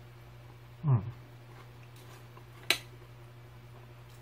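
A brief vocal sound from the eater, falling in pitch, about a second in, then a single sharp clink of a metal spoon against a ceramic cereal bowl near the end.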